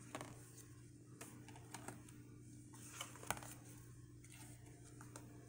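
Faint, scattered clicks and taps of tarot cards being handled and set one by one against a card stand, over a low steady hum.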